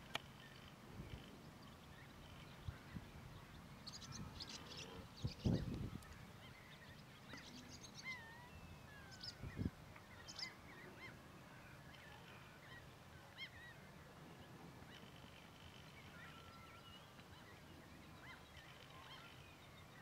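Canada goose goslings peeping, a scatter of faint, short, high chirps and whistles. Two brief low thumps about five and nine and a half seconds in are the loudest sounds.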